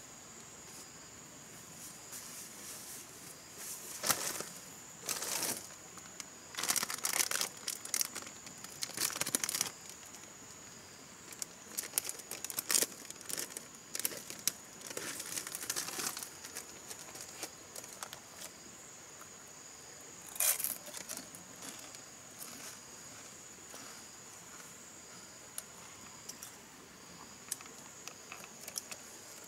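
Plastic snack bag of potato chips crinkling and rustling in irregular bursts as it is handled and torn open, with one more burst about twenty seconds in. A steady high insect drone carries on underneath.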